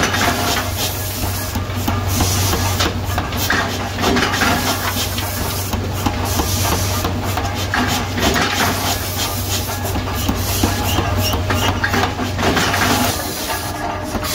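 Pneumatic forging hammer striking a red-hot steel blank, blows coming at uneven intervals over a steady machine hum and the hiss of the hammer's air.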